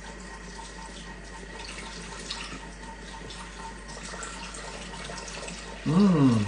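White wine poured steadily from a bottle into a Thermomix's metal mixing bowl, a continuous splashing trickle of liquid. Near the end a short, loud voice slides down in pitch.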